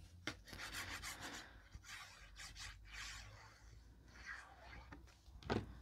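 Faint rustling and rubbing of card stock being handled while glue is applied to it from a fine-tipped squeeze bottle, with a few light clicks and a sharper tap near the end.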